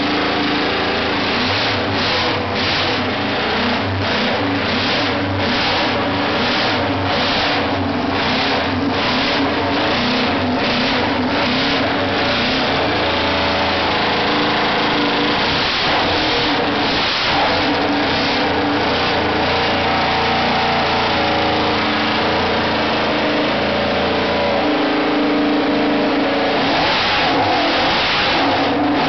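Homemade Suzuki 500 cc straight-eight motorcycle engine on Amal carburettors and new exhausts, running very loud. It is revved in quick repeated blips of the throttle, about two a second, for the first half, held steadier in the middle, then blipped again near the end.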